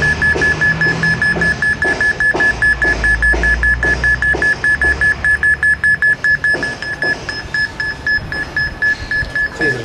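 Smartphone electromagnetic-field detector app beeping rapidly and evenly in a single high tone, about seven beeps a second, as it registers a strong field reading.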